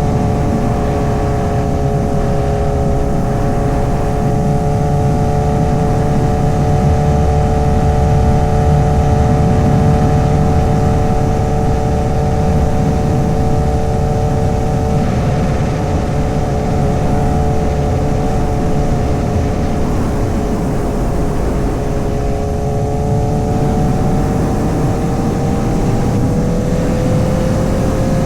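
2008 Honda CBR1000RR's 999cc inline-four engine running at steady cruising revs, its pitch sagging a little past the middle and rising again near the end. A heavy low rumble of wind and road noise runs underneath.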